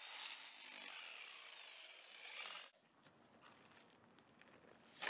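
Handheld corded electric power tool running against the soil at the end of a burrow trench, with a high whine; it winds down and stops a little under three seconds in. A single thump comes right at the end.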